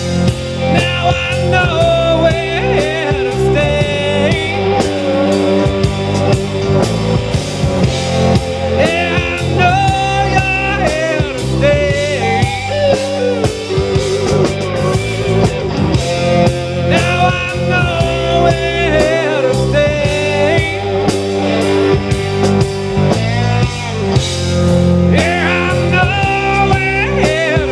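Blues-rock band playing an instrumental stretch: a lead electric guitar line of bending, wavering notes over bass and drums.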